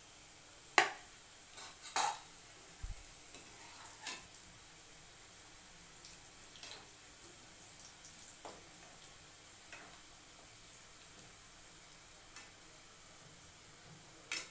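Bakarwadi rolls deep-frying in oil in a kadai: a faint, steady sizzle. A metal spoon clinks against the pan every few seconds as the rolls are stirred, sharpest about a second in and again at two seconds.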